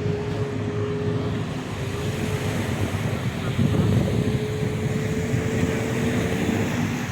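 A boat engine running steadily on the water, its pitch drifting slightly, with wind rumbling on the microphone.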